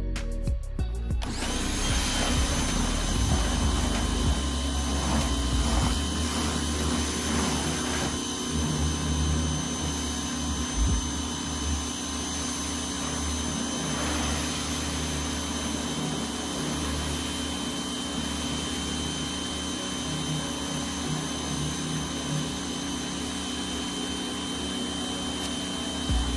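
Pressure washer running steadily, a constant high whine over a full hiss of spray, starting abruptly about a second in.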